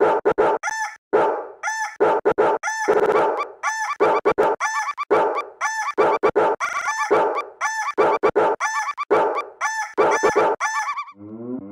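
Rooster crowing and clucking samples, chopped and looped into a stuttering rhythmic pattern that repeats about every two seconds. Near the end a synthesizer bass line comes in.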